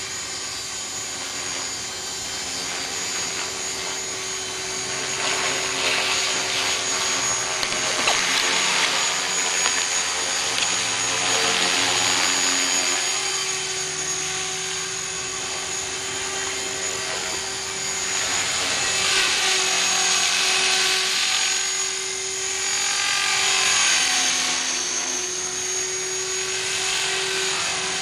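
Align T-REX 450SE v2 electric radio-controlled helicopter in flight: the steady whine of its motor and spinning rotor. It swells louder several times as the helicopter comes nearer, with its pitch shifting slightly as the pilot manoeuvres.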